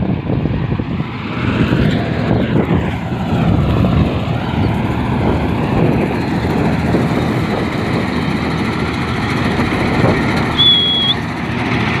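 Vishal combine harvester running under load while cutting crop, a loud steady mix of engine and cutter-bar and threshing noise that grows louder over the first few seconds. A brief high steady tone sounds for about half a second near the end.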